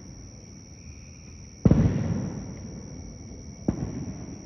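Two distant fireworks bangs: a sharp, loud one about one and a half seconds in and a weaker one about two seconds later, each trailing off in a rolling echo.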